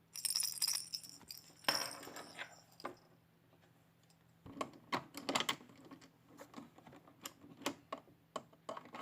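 Irregular light clicks and short rattles of small hard parts, a mini toy claw machine being handled. The clicks cluster near the start and again from about halfway through.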